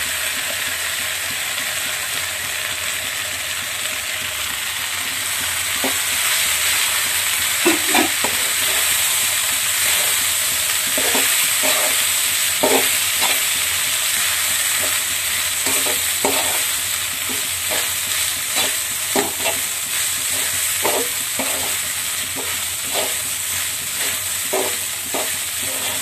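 Basmati rice and vegetables sizzling in a hot metal kadai while being stir-fried, with a steady frying hiss. From about six seconds in, a flat metal spatula scrapes and clacks against the pan at an irregular pace as the rice is tossed.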